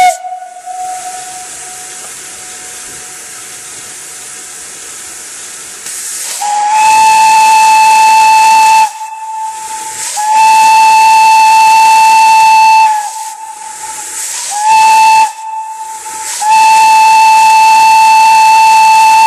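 Steam locomotive whistle with steam hissing: after about six seconds of hiss, one steady high whistle tone is blown four times, long, long, short, long, with hissing steam between the blasts.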